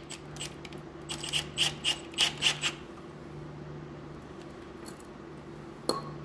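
Small metal parts clicking and clinking as they are handled: a quick run of clicks from about one to three seconds in, and a single ringing clink near the end, over a steady low hum.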